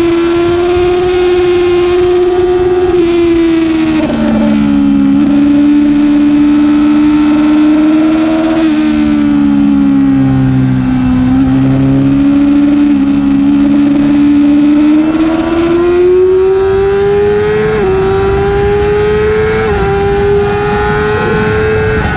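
Yamaha R6 inline-four engine at high revs, heard onboard. The revs drop about four seconds in and sag to their lowest near the middle, then climb steadily, with two brief steps near the end as it shifts up into fifth gear.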